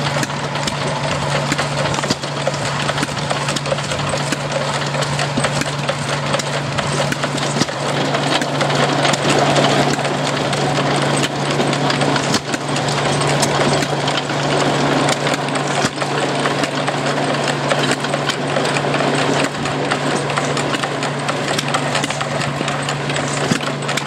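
Antique twin-flywheel stationary gas engine running and driving a wooden farm machine through a long flat belt; the machine clatters steadily with scattered sharp knocks over a constant low hum.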